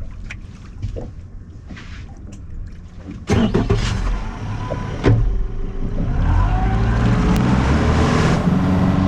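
A small boat's motor starts up suddenly about three seconds in, after a few light clicks, and then runs steadily, rising in pitch as the boat speeds up.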